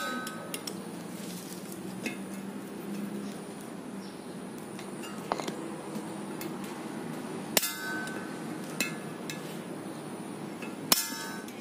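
Circlip pliers and the wheel bearing's lock clip clicking against the steel steering knuckle as the clip is worked out of the bearing bore: a few sharp metallic clicks with a short ring, the two loudest past the middle and near the end, with fainter taps between.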